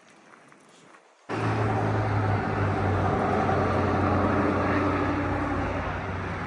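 A motor vehicle's engine running steadily with road noise, cutting in abruptly about a second in after near quiet.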